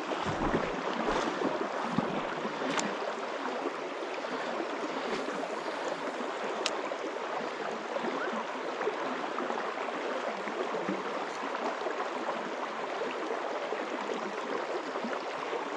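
Steady rush of flowing river water, with a few faint clicks.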